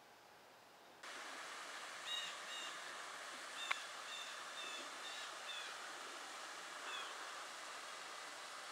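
Steady rush of river water flowing through a concrete dam, starting suddenly about a second in. A bird calls over it in short repeated notes, and there is one sharp click near the middle.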